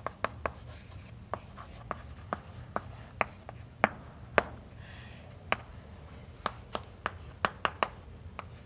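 Chalk writing on a chalkboard: irregular sharp taps and short scrapes as each letter is written, a few each second.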